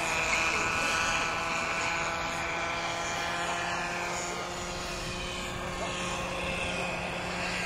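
Radio-controlled scale model helicopter in the style of a Eurocopter EC120 flying past: a steady, high whine from its motor and rotors, easing slightly in pitch and level after the first couple of seconds.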